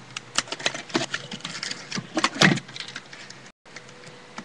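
Packaging and tape being pulled off a craft-kit box: irregular crinkling and crackling, with a louder crackle about two and a half seconds in.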